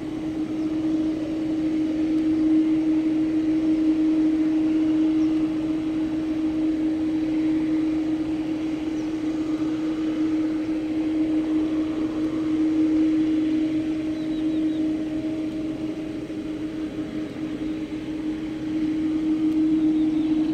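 Jet engines of a Boeing 787-9 airliner running at taxi power as it rolls slowly along the runway: a steady hum with one held tone that swells and eases slightly now and then.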